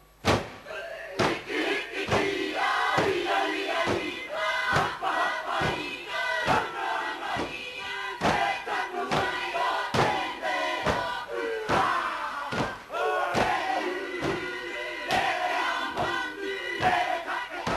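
Māori kapa haka group performing a haka: many voices chanting and shouting in unison, punctuated by sharp stamps and body slaps about twice a second.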